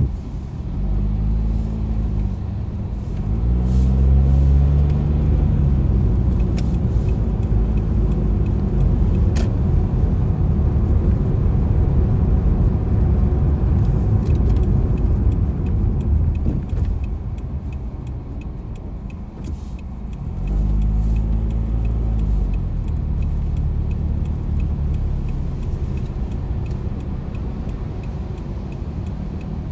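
Car engine and wet-road tyre hiss heard from inside the cabin while driving. The engine rises and falls in pitch through the gears as the car accelerates near the start, settles to a steady cruise, then pulls away through the gears again about two-thirds of the way through.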